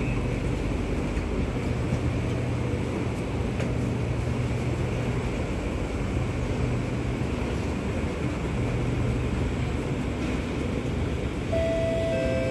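Kawasaki Nippon Sharyo C751B metro train standing at a platform with its doors open, its onboard equipment giving a steady low hum. Near the end a two-note falling door chime sounds.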